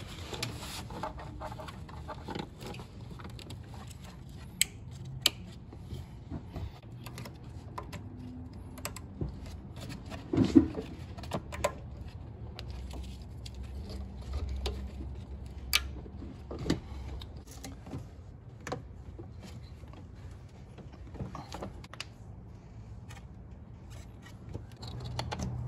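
Scattered clicks, snaps and light rattles of plastic wiring-harness push rivets and electrical connectors being pushed into place on an engine, with the loudest knock about ten seconds in.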